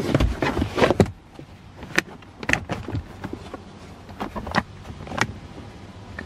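A Honda all-season rubber floor mat being handled and laid into a minivan footwell. A burst of scuffing and flapping comes in the first second, then a series of separate knocks and clicks as the mat is pressed down over the floor anchor posts.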